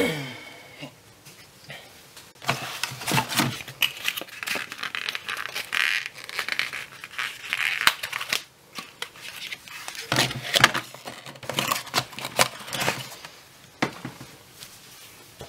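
Irregular crinkling and rustling of things being handled close by, with scattered sharp clicks.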